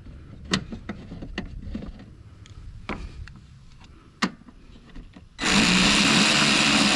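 Light clicks and knocks of parts being handled, then, near the end, a cordless electric ratchet whirring steadily for about two seconds as it runs down a 10 mm bolt.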